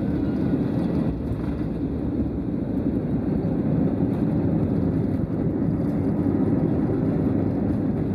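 Airbus A320 decelerating on a wet runway just after landing, heard from inside the cabin: a loud, steady rumble of the jet engines and the rolling wheels.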